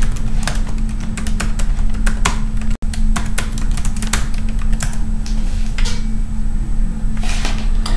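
Typing on a computer keyboard: a quick run of keystrokes that thins out after about five seconds, with a few more presses near the end, over a steady low hum.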